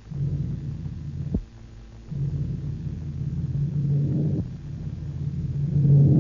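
Low, sustained musical chords that change about two seconds in and swell twice: a music bridge between the introduction and the drama. A single sharp click sounds about a second and a half in.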